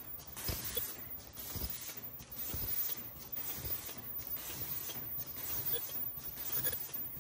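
Automatic N95 mask-making machine running: a continuous mechanical clatter of rollers and moving parts, with a regular thump about once a second from the machine's cycle.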